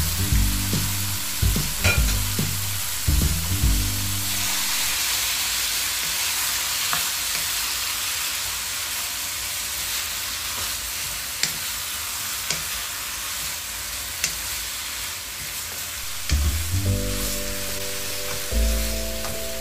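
Ground beef frying with onions and tomatoes in a pan, a steady sizzle, while a wooden spoon stirs and breaks up the meat with a few sharp clicks against the pan. Background music with low notes plays over the first few seconds and again near the end.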